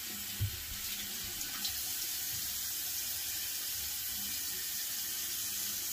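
Tap water running steadily into a bathroom sink as a shaving brush is rinsed out under it, with a light knock about half a second in.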